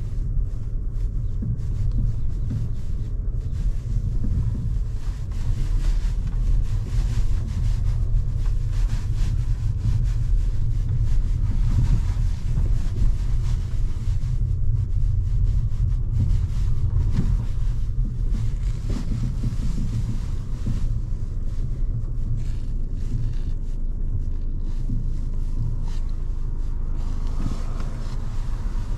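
Steady low rumble of the Volkswagen Passat's 1.8 TSI turbocharged four-cylinder engine and the car around it, heard from inside the car, with some wind noise on the microphone.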